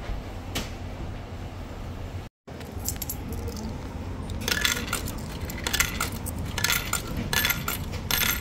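Coins dropped one at a time into a coffee vending machine's coin slot, each clinking and rattling down into the coin mechanism; a run of them comes in quick succession through the second half. A steady low hum lies underneath.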